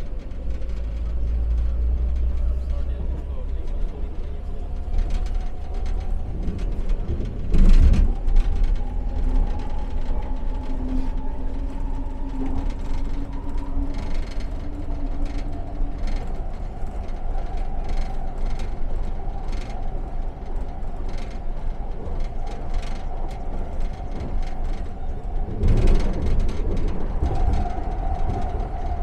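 Expo Line SkyTrain, a linear-induction-motor train, running along its track: a steady rumble with a whining motor tone. Two short loud clatters come about 8 seconds in and near the end.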